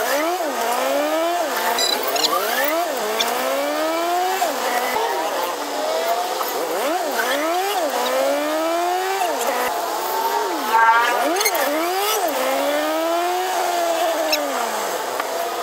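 A moving jeepney's engine and drivetrain, heard from inside the passenger cabin. A whining pitch keeps rising and then dropping, over steady road noise.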